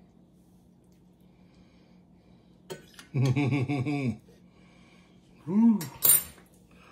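A man's wordless vocal sounds: a hummed sound about three seconds in and a short rising-and-falling one near the end. Right after the second comes a sharp clink of a metal fork against the plate and tile counter.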